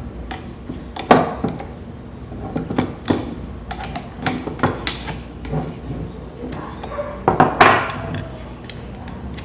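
Metal parts of a homemade steel drill-press vise being handled, clinking and knocking together in irregular clanks. The loudest come about a second in, about three seconds in, and as a cluster between seven and eight seconds.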